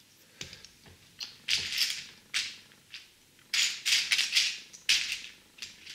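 Loose plastic LEGO bricks rattling and clicking as a hand rummages through a tray of pieces, in several short bursts.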